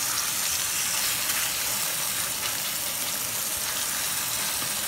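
Beef steak sizzling steadily in oil in a hot stainless steel frying pan, an even hiss.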